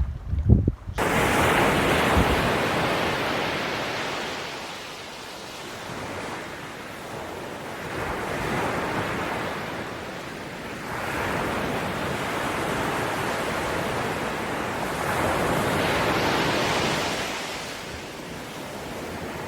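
Ocean waves breaking and washing up on a beach, the surf swelling and fading in about four slow surges. The sound starts abruptly about a second in.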